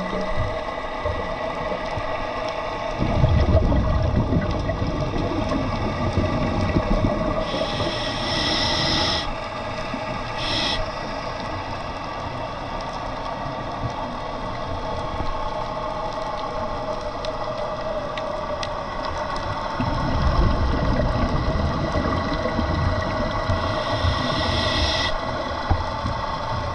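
Scuba diver breathing through a regulator underwater: a long rumble of exhaled bubbles, then a short hiss of inhalation, twice, over a steady hum.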